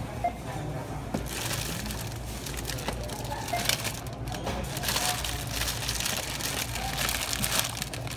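Plastic toy packaging and blind bags crinkling and rustling as they are handled and lifted out of a shopping cart. The crinkling comes in several bursts over a steady low hum.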